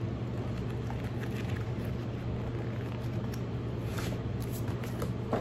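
Pages of a softcover magazine being leafed through: a few light paper flicks and rustles, over a steady low hum.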